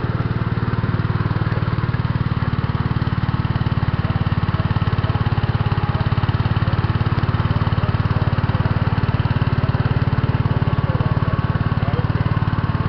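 Cub Cadet 106 garden tractor's single-cylinder Kohler engine running steadily at a low, even speed as the tractor drives slowly across the grass.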